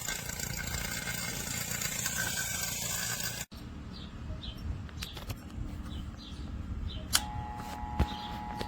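XtremepowerUS 3 CFM 1/4 HP HVAC vacuum pump running steadily while evacuating the A/C lines. About three and a half seconds in, the sound cuts off suddenly, leaving a quieter background with faint high chirps and two sharp clicks near the end.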